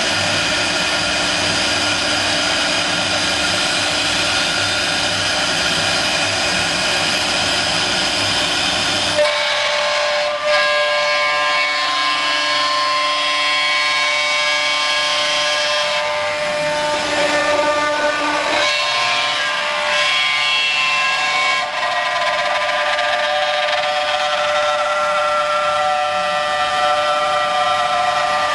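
CNC router spindle with a high steady whine as its bit cuts a curved wooden chair panel. A heavy cutting hiss drops away about nine seconds in, and the whine shifts pitch a few times later on.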